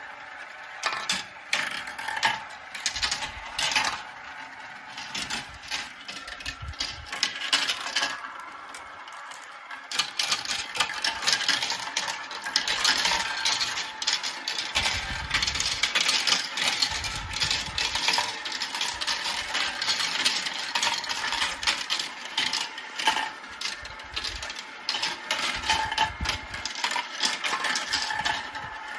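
Marbles rolling and clacking through a marble run: scattered clicks at first, a short lull about eight to ten seconds in, then a dense, continuous clatter of many marbles, with a few dull thuds.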